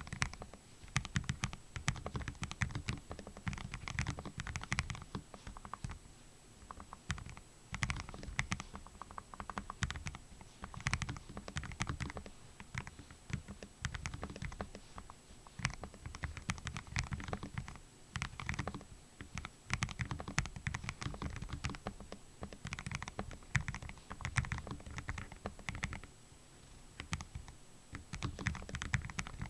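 Typing on a Lofree Flow gasket-mounted low-profile mechanical keyboard with Kailh Full POM linear switches: a fast, uneven run of key clicks that eases off briefly near the end.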